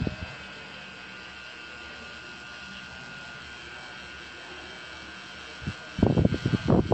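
Pen-style rotary tattoo machine buzzing steadily as its needle works ink into the skin: a thin, even hum. About six seconds in, loud irregular noise breaks in over it.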